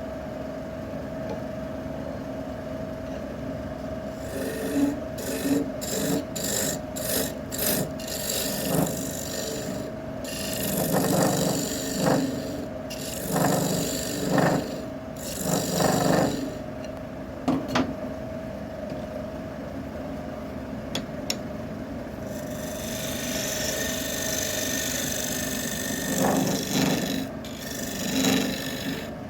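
Wood lathe running with a steady motor hum, while a turning tool is worked against the spinning wood in repeated rasping strokes: a quick run of short strokes, then longer ones, and a continuous rasp near the end.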